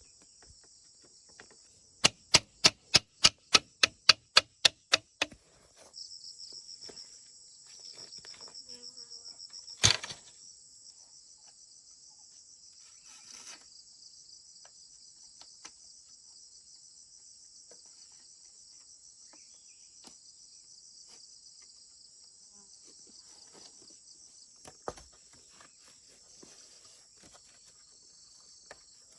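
Insects chirring steadily and high-pitched throughout. About two seconds in comes a quick run of about eleven sharp, ringing knocks, some three a second, like chopping or hammering. One more loud knock follows about ten seconds in.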